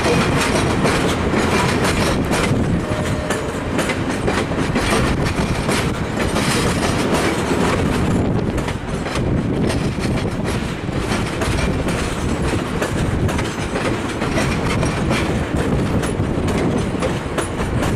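Stainless-steel VIA Rail HEP passenger coaches of a departing train rolling over the station's switches, their wheels clattering over rail joints and frogs in an uneven clickety-clack.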